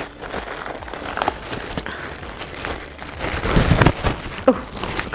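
Clear plastic poly bag crinkling and rustling as it is pulled open and a shirt drawn out of it, loudest about three and a half seconds in.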